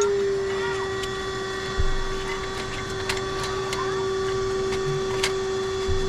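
Steady mechanical hum with scattered light metal clicks and two dull thumps, from hand tools working on the exhaust manifold bolts of a Dodge Ram.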